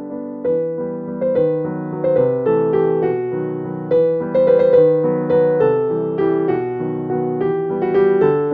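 Background piano music: a gentle melody of struck notes over lower chords, each note fading after it is struck.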